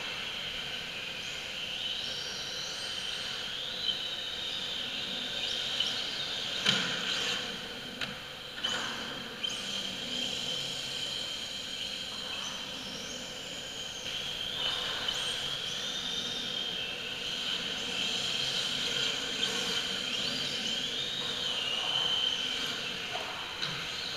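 Electric 1/10 radio-controlled drift cars running round a track: a high whine of motors and drivetrains that rises and falls over and over as the throttle is worked, mixed from several cars. A few sharp knocks cut in about seven to ten seconds in.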